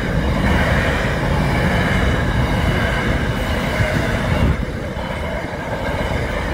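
Double-stacked container freight train passing at speed: a steady rumble and rattle of the wagons and their wheels on the rails, a little quieter from about four and a half seconds in.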